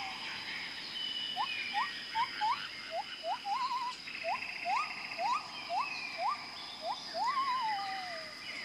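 Tropical rainforest animal chorus: many short whistled calls that each sweep upward, coming one after another, with a couple of longer wavering notes that slide downward. Under them runs a steady high-pitched insect drone.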